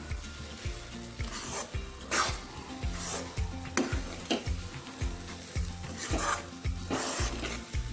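Steel spoon scraping and stirring a thick rava-and-coconut burfi mixture around a metal kadai, in repeated strokes about once a second. The mixture is still moist and is being cooked down until it comes together.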